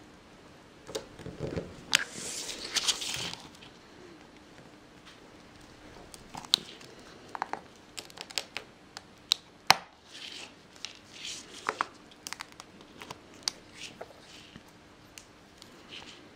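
Thin metal tool prying and scraping at a stuck power LED in its hard plastic front-panel housing: a run of sharp plastic clicks and short scratchy scrapes, the longest scrape about two seconds in.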